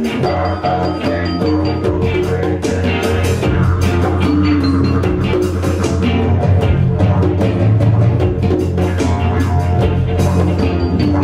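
Live world-beat fusion jam: a didgeridoo drone over hand-played congas and a frame drum, with electric guitar and bass guitar, in a steady, driving groove.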